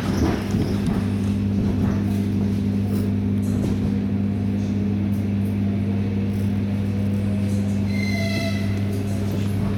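ER9T electric train running between stations, heard from inside the car: a steady low hum over the rumble of wheels on track, rougher for a moment at the start. About eight seconds in there is a brief high-pitched tone.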